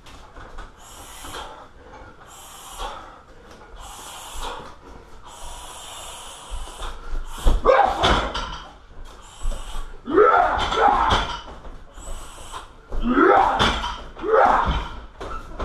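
A fighter's sharp breaths through the first half, then three heavy strikes thudding into a car tyre, each with a voiced exhalation that bends up and down in pitch.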